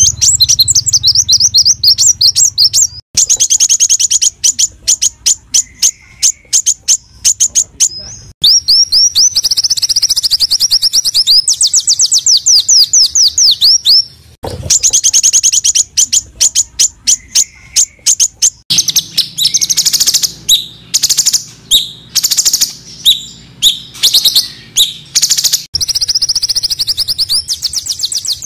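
Small songbirds calling in fast, dense rapid-fire trills of sharp high chirps. The song comes in segments that cut off abruptly and switch every few seconds, as in an edited bird-song training compilation.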